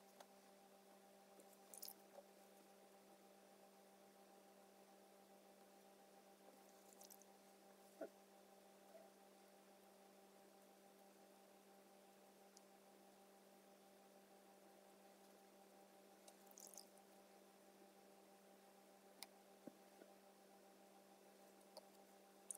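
Near silence with a steady low hum, broken by a few faint, brief scratches of a paintbrush on watercolour paper and a light tap about 8 seconds in.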